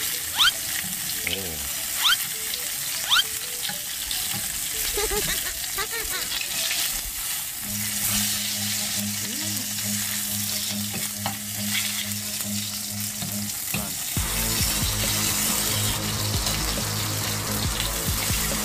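Hanwoo ribeye steak sizzling steadily in hot butter in a frying pan as it is basted and then seared on its edge.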